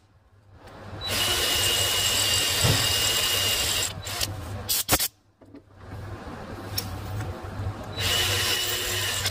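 Electric hand drill boring out a broken exhaust manifold bolt with a 5.5 mm bit. It runs with a steady whine for about three seconds, stops with a click, then runs again, with the whine back near the end.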